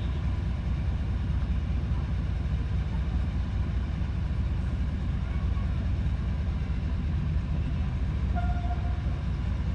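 Narrow-gauge diesel locomotive idling, a steady low rumble.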